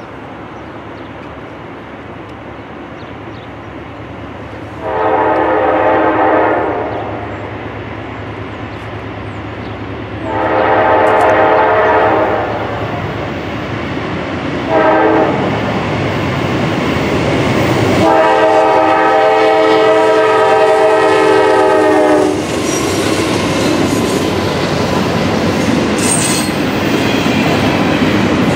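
Norfolk Southern GE C40-9W diesel locomotive's air horn sounding the grade-crossing signal as it approaches: two long blasts, a short one, and a final long one. After the last blast the locomotive runs by, and the double-stack intermodal cars follow with a steady clickety-clack of wheels over the rails.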